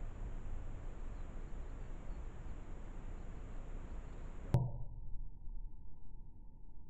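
Steady low background noise, broken about four and a half seconds in by a single sharp click, after which only a dull, muffled hum remains.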